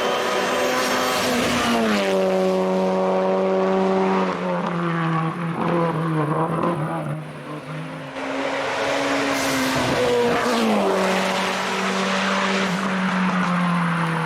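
Hillclimb race car engine running hard at high revs, its note dropping sharply in pitch about two seconds in and again about eleven seconds in, holding steady in between.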